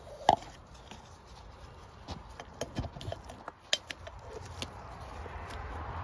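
A series of irregular sharp clicks and light knocks, the loudest just after the start and several more close together in the middle, over a faint background noise that grows louder near the end.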